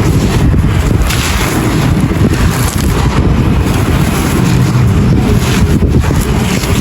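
Dry clay pot pieces being crushed and crumbled close to the microphone: a dense, steady gritty crunching and crackling.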